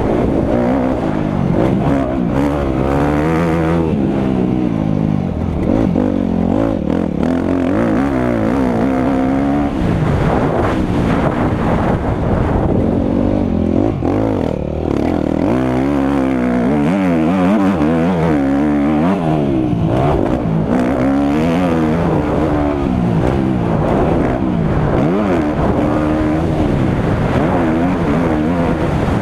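Motocross bike engine under hard riding, its pitch repeatedly climbing as the throttle is opened and dropping on gear changes and when the rider backs off.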